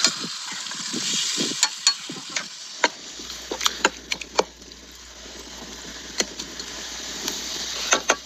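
Metal ladle stirring minced-meat filling in a pot over a wood fire: a steady sizzling hiss with scattered sharp clinks and scrapes of the ladle against the pot.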